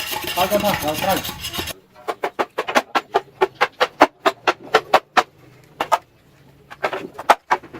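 Music for the first second and a half, then a rapid series of sharp knocks, about five a second, that stops, then comes back with a few more knocks near the end.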